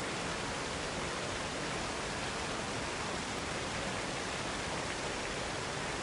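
Waterfall: the steady rushing hiss of falling water, even throughout with no breaks or separate splashes.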